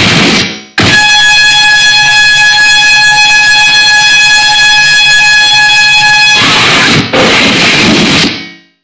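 Loud harsh digital noise in abrupt cut-up blocks. A burst of dense noise breaks off just under a second in and gives way to a steady buzzing drone, one fixed pitch with many overtones, for about five seconds. It then cuts sharply back to dense noise, which fades into a brief silence near the end.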